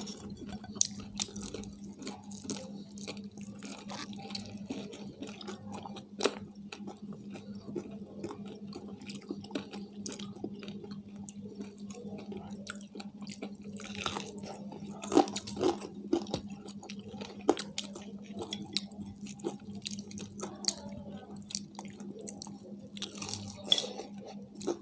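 People chewing and biting into crispy fried chicken: irregular crunches and wet mouth clicks over a steady low hum.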